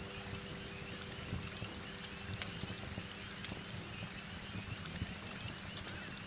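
Steady heavy rain with scattered sharp pops of a wood fire crackling. A faint lingering singing-bowl tone fades out about a second in.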